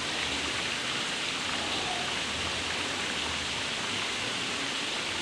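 Steady hiss of falling or running water, even and unbroken.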